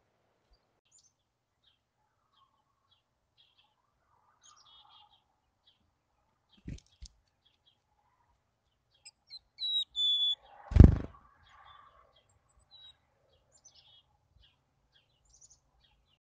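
Black-capped chickadees giving faint, high, thin chirps throughout, with a clearer high whistled note about ten seconds in. It is followed at once by a single loud thump, the loudest sound, and two soft knocks come a few seconds earlier.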